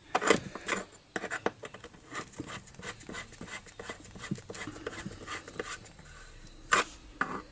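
Metal tubular spark-plug wrench clicking and scraping against a chainsaw's plug and housing as the spark plug is fitted and screwed in, in irregular small clicks with a sharper click just after the start and another near the end.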